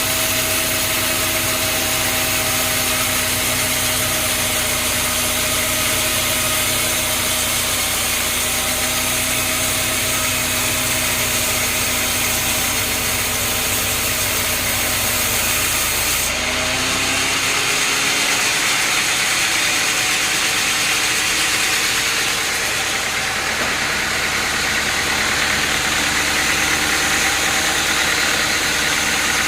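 Sawmill machinery running steadily with an engine hum. Its sound changes abruptly about halfway through, the deep part dropping away.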